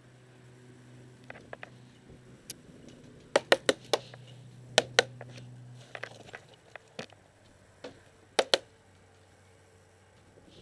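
Paintball fire close by: sharp cracks in quick groups of two and three, a few seconds apart, with some fainter single pops between. A low steady hum runs underneath for the first six seconds.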